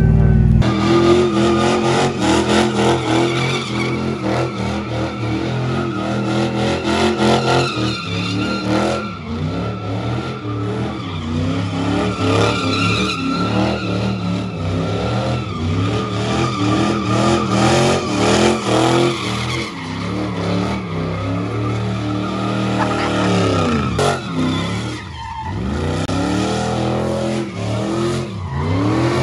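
A car engine held at high revs with tires squealing, as in a burnout or donuts. Late on the revs drop briefly and climb again.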